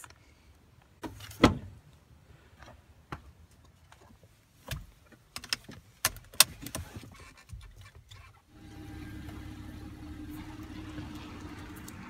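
Clicks and knocks inside a Ford Flex as a seat belt is buckled, then, from about eight and a half seconds in, the steady hum of the Ford Flex's engine running.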